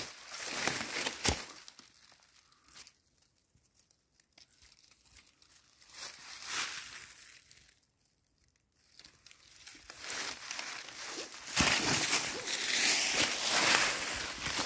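Dry fallen leaves and twigs rustling and crunching as someone moves through forest leaf litter: a short burst at the start, a near-quiet pause, then louder, steady rustling over the last few seconds.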